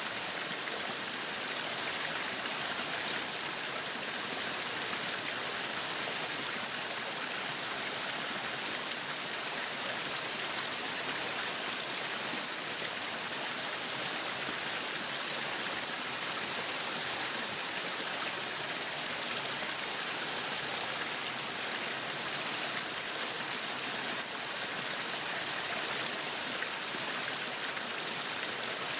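Meat sizzling on a yakiniku grill: a steady, dense crackling hiss.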